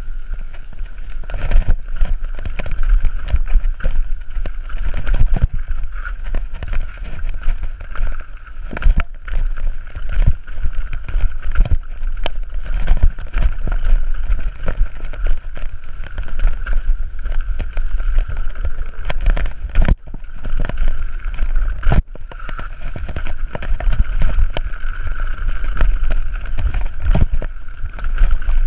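Mountain bike descending a dirt trail: wind buffeting the action camera's microphone and tyres rumbling over the ground, with frequent knocks and rattles from the bike as it hits bumps.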